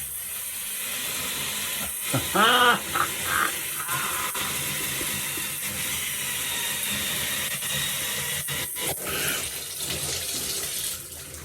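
Water spraying steadily from a Hansgrohe 2.5 gallon-per-minute rain shower head, an even hiss of spray. A brief voiced sound comes about two and a half seconds in, and a few light clicks near the end.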